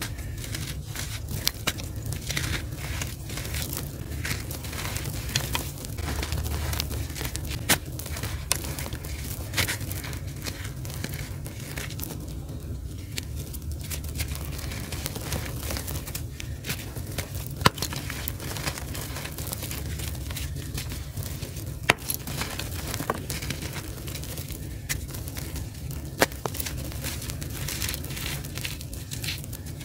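Hands squeezing and crumbling clumps of gritty charcoal dust: a continuous stream of dry crunching and crackling, with a few louder, sharper cracks as firmer lumps break. A steady low hum runs underneath.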